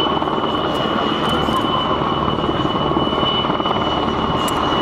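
Military helicopters flying low past: steady, loud rotor and turbine noise with a constant high whine over it.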